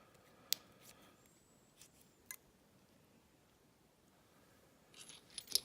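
A few faint, sharp metallic clicks of small lock parts being handled, then near the end a short burst of wheezing breath from a pet.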